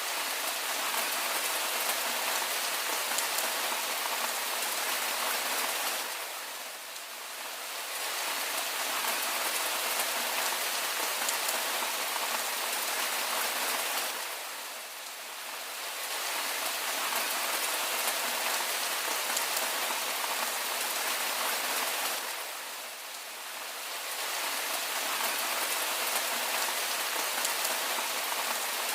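Steady rain falling, an even hiss of drops that eases briefly and swells back about every eight seconds.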